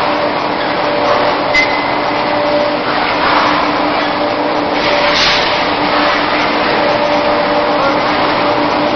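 Steady machine noise of a running steel pipe welding line (tube mill) in a factory hall: an even hiss over a continuous low hum with a steady tone.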